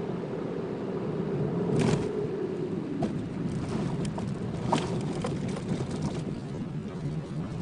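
Car running down the road, heard from inside the cabin through a dash-mounted phone: a steady engine and road-noise hum. There is a louder jolt about two seconds in, then scattered knocks and rattles over the next few seconds.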